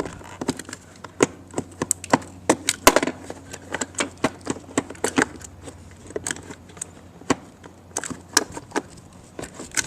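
Irregular clicks and knocks as a car seat's LATCH connectors are pulled from their storage compartment and handled.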